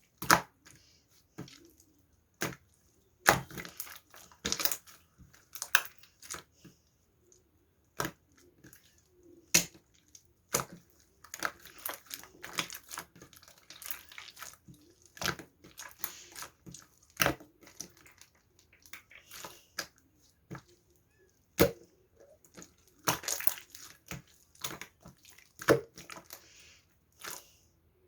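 Irregular sharp clicks and taps mixed with short rustling, crinkling noises, as of objects being handled.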